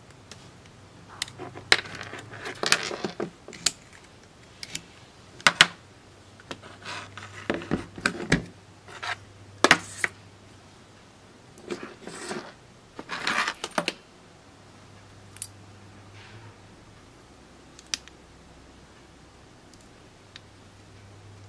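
Metal crocodile clips and wire leads being handled: a run of sharp clicks and short clattering bursts as clips come off a battery's terminals, then only a few scattered clicks.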